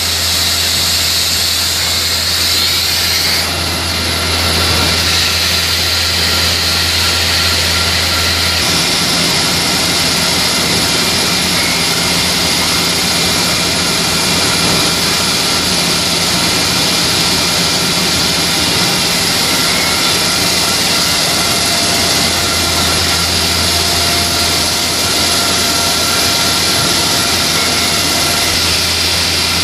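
Tissue converting machinery running in a factory: a loud, steady din of motors and conveyors with several constant whining tones. A low hum drops out about nine seconds in and comes back near the twenty-two-second mark.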